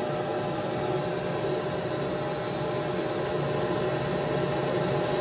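Shop vac running steadily, blowing air through a PVC confetti cannon: a rush of air with a steady whine.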